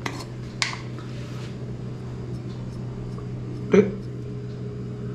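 Pepper powder shaken from a glass jar into a steel mixing bowl, a brief soft rattle about half a second in, over a steady low hum. A short murmur near four seconds.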